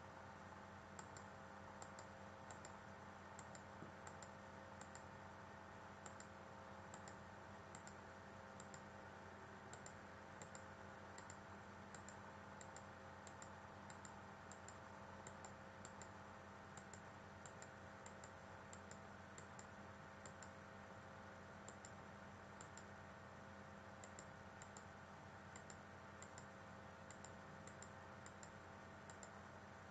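Faint computer mouse clicks, about one a second, each click adding a point along a traced curve. A low steady hum runs beneath.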